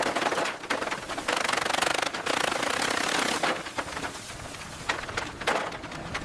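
Bursts of rapid mechanical rattling over a hissing noise, stopping and starting several times, typical of power tools at work.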